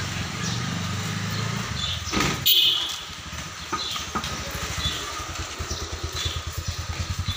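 Motorcycle engine running close by as it passes in a narrow lane, its fast low pulsing growing stronger in the second half. A brief sharp high-pitched sound about two and a half seconds in is the loudest moment.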